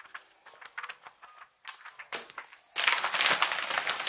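Paperback pages riffling faintly, then a brown paper mailer bag crinkling loudly as it is opened and crumpled by hand, starting almost three seconds in.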